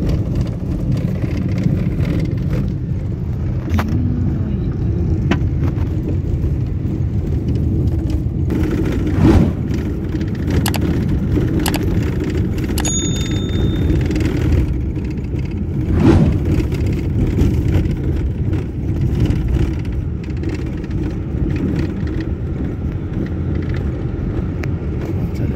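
Car driving over a rough desert dirt track, heard from inside the cabin: a steady low rumble of engine and tyres on gravel, with scattered clicks and knocks and two louder bumps about nine and sixteen seconds in.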